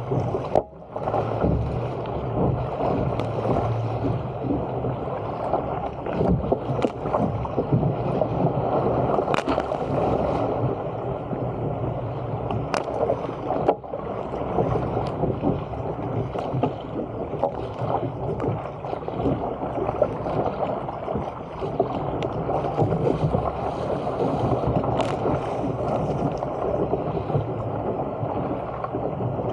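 Water rushing and splashing against the hull of a Stealth 475 fishing surfski paddled at speed through chop. Frequent sharp splashes stand out, and the sound drops away briefly about a second in.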